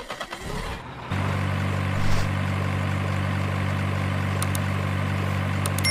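Truck engine idling: a steady low drone that starts suddenly about a second in and holds unchanged.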